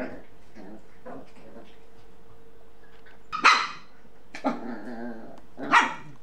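Shiba Inu dogs barking: three loud barks about a second apart, the middle one drawn out longer.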